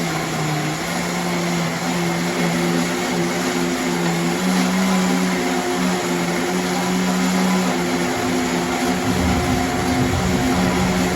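Countertop blender running, blending cantaloupe, carrot and ginger with water into juice; a steady motor hum that steps up in pitch about four seconds in.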